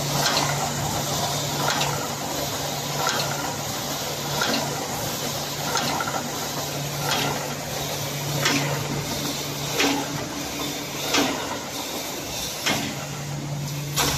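Automatic wire mesh panel welding machine running through its cycles: a sharp clack about every second and a half over a steady low hum.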